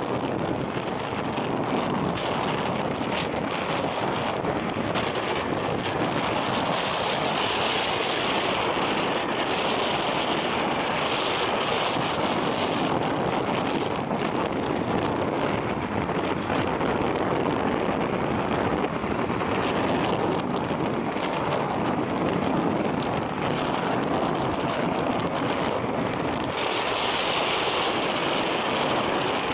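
Wind rushing steadily across the microphone.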